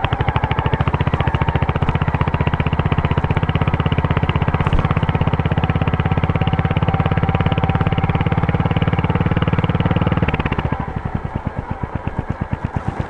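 Royal Enfield Hunter 350's single-cylinder engine running at a steady, slightly raised speed, its exhaust giving an even thump. About ten and a half seconds in it drops back to a slower, quieter idle.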